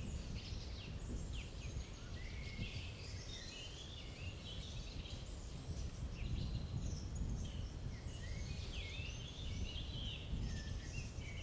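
Background birdsong: many short chirps and twittering phrases from small birds, overlapping throughout, over a steady low rumble of outdoor noise.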